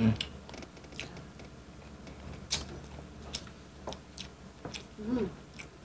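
Eating sounds of people taking spoonfuls of soft canned fish and rice: scattered soft clicks and wet mouth smacks, with a short hummed sound about five seconds in.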